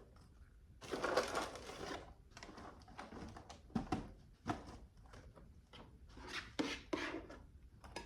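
Kitchen handling noises while a dessert is being put together: a noisy rustle lasting about a second near the start, then scattered light clicks and knocks.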